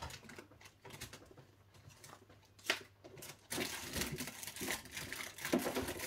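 Rummaging through craft supplies: packets crinkling and rustling, with scattered small clicks and knocks that grow busier in the second half.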